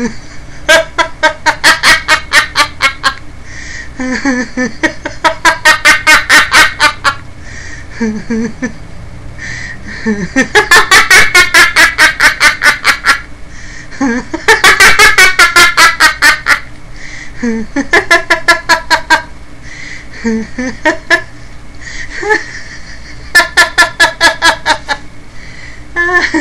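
A woman laughing in a string of bouts of rapid "ha-ha" pulses, about five or six a second, with short pauses and breaths between bouts. It is a deliberate practice laugh, the "resonating laugh" of a laughter exercise.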